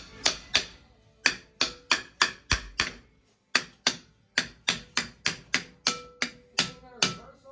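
About twenty sharp hammer blows on metal, roughly three a second in short runs with brief pauses, each with a short ringing tail. Faint background music.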